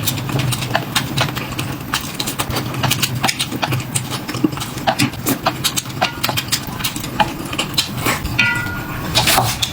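Irregular clicks and knocks of tableware being handled, bowls and dishes set down and moved about, over a low steady hum.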